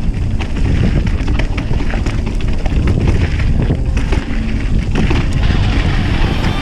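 Mountain bike riding down a snowy trail: wind buffeting the microphone over the low rumble of the tyres, with frequent knocks and rattles from the bike over bumps.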